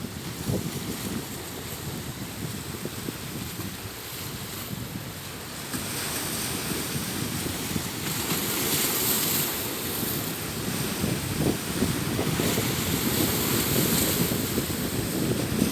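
Sea waves washing onto the shore, with wind buffeting the microphone. The surf grows louder about a third of the way in and swells twice after that.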